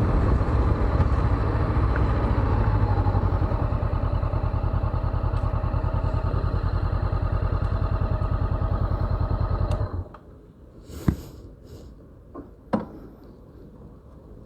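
Honda CB500X's parallel-twin engine idling steadily, then switched off abruptly about ten seconds in. Two sharp clicks follow in the quiet.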